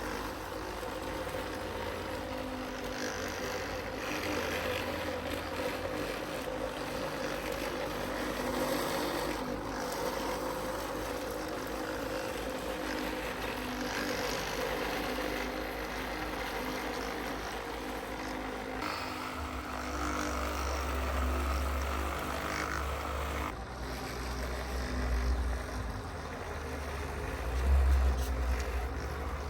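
Radio-controlled model construction vehicles running, with a steady layered motor whine and hum. The sound changes abruptly twice, and a low rumble swells up near the end.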